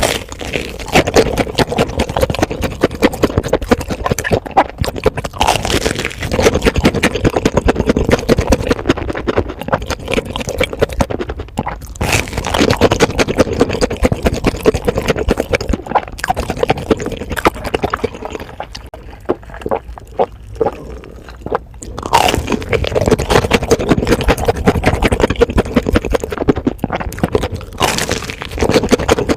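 Crunching and chewing of a corn dog, close to the microphone: dense, irregular crisp crackles from bites and chewing, easing off for a few seconds past the middle.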